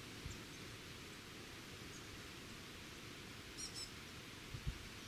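Faint outdoor bush ambience with a steady hiss; a bird gives two quick high chirps about three and a half seconds in, and there are a couple of soft low thumps.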